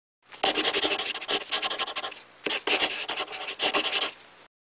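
Scratchy scribbling sound effect, like a pen or marker writing on paper, in two bursts of just under two seconds each that start and stop abruptly.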